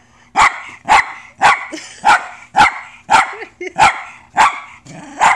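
West Highland white terrier barking repeatedly at an interactive toy dog, a steady run of about nine barks, roughly two a second.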